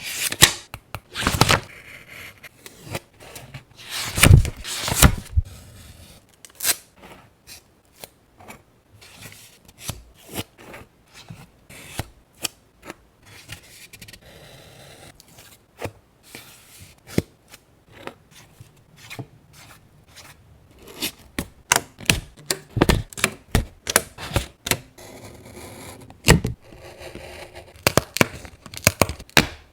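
Paper and craft materials being handled for a scrapbook journal: many short sharp taps and clicks with rustling and scraping between them, growing busier over the last third.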